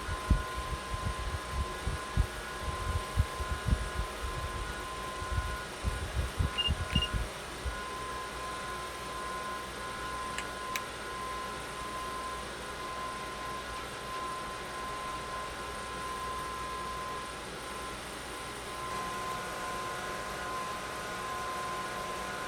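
Small 12 V cross-flow fan running steadily with a constant whine, blowing air out of a homemade gas fan heater. Irregular low thumps come during the first eight seconds, with two short high beeps about seven seconds in.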